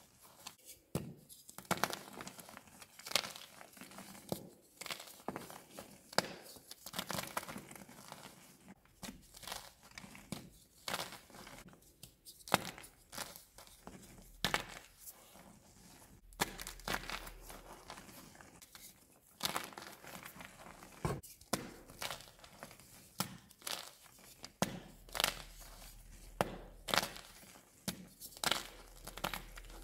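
Blocks of gym chalk (magnesium carbonate) crushed and crumbled between bare hands: a dense run of soft, dry crunches and crackles, unevenly spaced and varying in strength, as the blocks break apart into powder.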